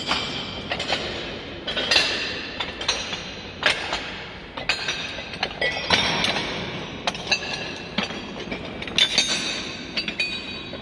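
Heavy steel face-shaped discs of Kadishman's 'Fallen Leaves' clanking and clinking against each other under footsteps, in irregular clusters of ringing metallic clangs that echo off the bare concrete walls.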